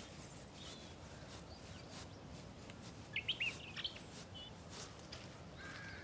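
Small birds chirping over quiet forest ambience: a quick cluster of several high, short chirps about three seconds in, with fainter single chirps earlier and later.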